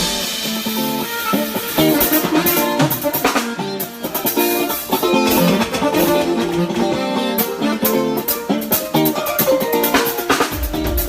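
A live band playing during a sound check: pitched instrument notes with scattered drum and rim hits. The bass drum and full kit come in near the end.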